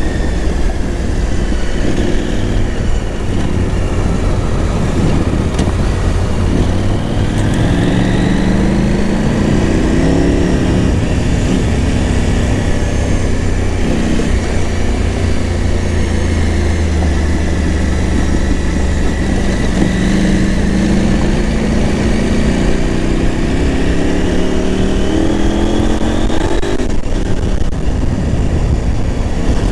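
KTM 890 Adventure R's parallel-twin engine running under way, revving up in several rising pulls that drop back between them, as when accelerating through the gears, with a steady rush of wind noise underneath.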